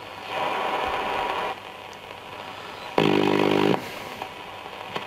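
Nordmende Elektra valve radio's loudspeaker hissing with shortwave static as the dial is turned across the band. About three seconds in, a station's pitched sound breaks through for under a second.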